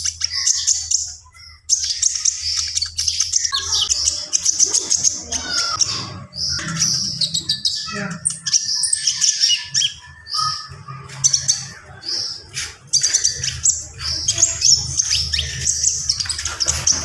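A konin songbird singing vigorously (gacor), a dense run of rapid high chirps, trills and fill-in calls with only a brief pause about a second in, over a steady low hum.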